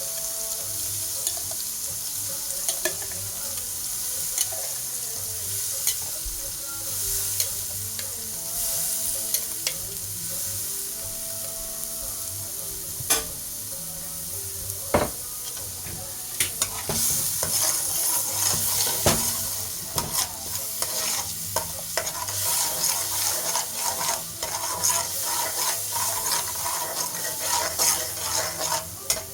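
Green seasoning and garlic-ginger paste sizzling in hot oil in a pan while being stirred, the utensil clicking and scraping against the pan, with the clicks coming more often in the second half.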